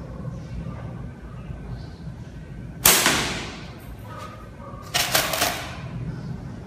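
A slingshot shot with flat rubber bands: one loud, sharp crack as the bands are released and the marble flies, dying away over about half a second. About two seconds later comes a short rattle of quick clicks, from marbles being handled for the next shot.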